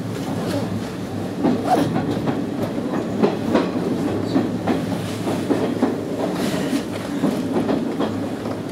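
Izu-Hakone Railway 3000-series electric train running, its wheels clacking irregularly over rail joints and a set of points, over a steady low running hum.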